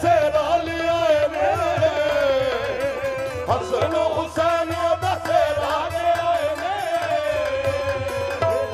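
Qawwali: a lead voice sings a wavering, ornamented line over harmoniums, with a steady rhythmic hand-drum beat underneath.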